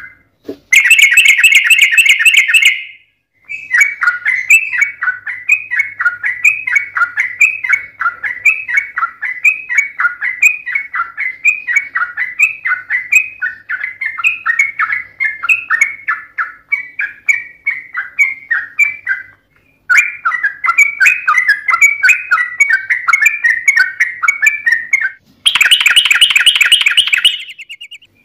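Yellow-vented bulbul (trucukan) song: long runs of quick, chattering notes broken by short pauses. Louder, denser bursts come near the start and near the end.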